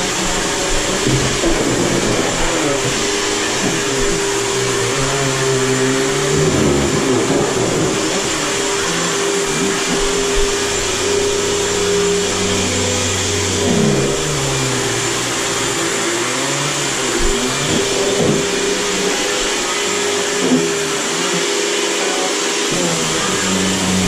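Riccar 100 upright vacuum cleaner running steadily with a constant hum and whine. Lower tones in it rise and fall as it is pushed back and forth over mats and hardwood floor.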